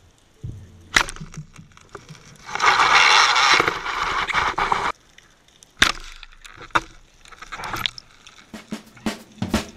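Underwater spearfishing shot: a sharp click as the speargun fires about a second in, followed by a couple of seconds of rushing noise and scattered clicks and knocks as the speared fish is fought on the line.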